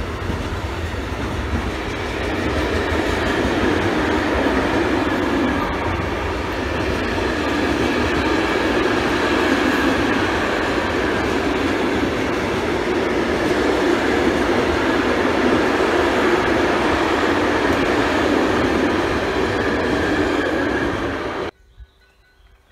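Freight train of pocket wagons loaded with truck semi-trailers rolling past, a steady loud rumble of wheels on rail. It cuts off suddenly about a second before the end, leaving only faint quiet.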